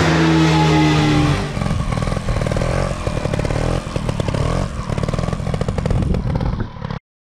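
Dirt bike engine held at steady high revs for about a second and a half, then running choppy and uneven with rising and falling revs as it is ridden. Cuts off suddenly near the end.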